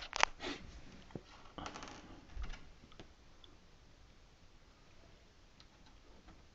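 Stiff cardboard back panel of a refrigerator being handled and tucked into place under its edges: a few sharp clicks and scraping rustles in the first two and a half seconds, then faint scattered ticks.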